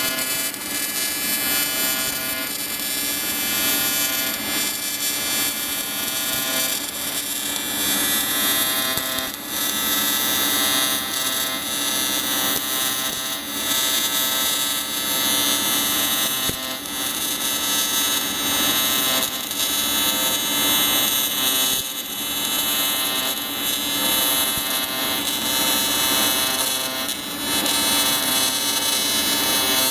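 AC TIG welding arc buzzing steadily, set to 200 amps at 125 Hz on an advanced square wave, while filler rod is fed into oil-soaked cast aluminium. The buzz dips briefly a few times as the arc length changes.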